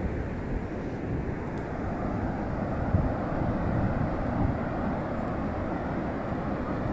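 Steady low wind rumble buffeting the microphone, an even noise with no distinct events.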